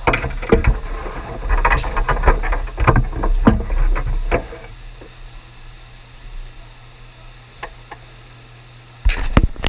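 Knocks, clatter and rustling as a child driver climbs out of a parked quarter midget race car, bumping the seat and roll cage, busiest in the first four seconds. After that a low steady hum with a few light clicks, then a burst of loud, close knocks near the end.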